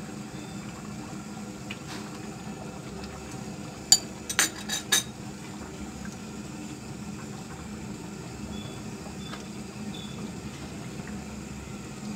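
A spatula stirring fish curry in an iron karahi, with a quick run of four sharp knocks against the pan about four seconds in, over the steady hiss of the curry simmering on a gas burner.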